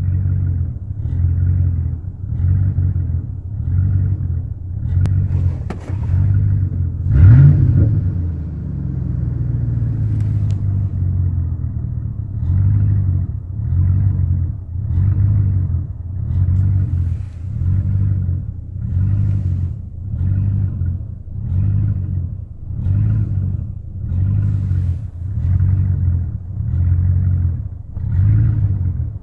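1999 Chevrolet Silverado 1500's engine idling roughly, its sound swelling and dipping about once a second. A little over seven seconds in, the engine revs briefly and settles back. The rough idle persists despite new intake manifold gaskets, spark plugs, plug wires and fuel pump.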